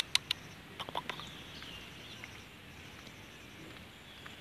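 A white Indian Runner duck dabbling its bill in a muddy puddle: a few soft clicks and splashes in the first second, then only faint outdoor background.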